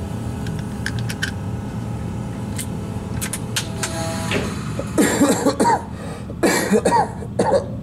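Steady low hum, then from about five seconds in three short clusters of a person's voice-like sounds.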